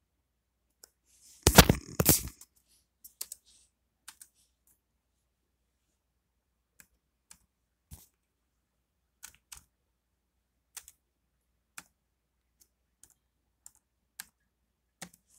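Sparse single clicks on a computer, spaced irregularly about a second apart, after a brief loud rustle about one and a half seconds in.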